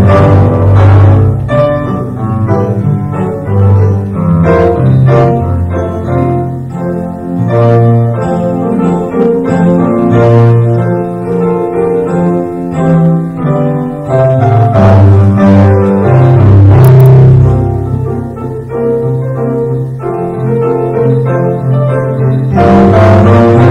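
Grand piano music with a prominent low bass line of held notes.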